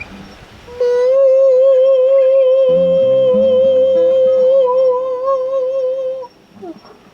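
A singer holds one long high note with vibrato, joined about a third of the way in by a sustained acoustic guitar chord. Both stop together near the end, closing a Hawaiian hymn.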